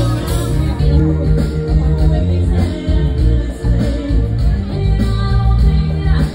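Live band playing amplified pop music: a woman singing over drums, keyboard and a heavy bass line.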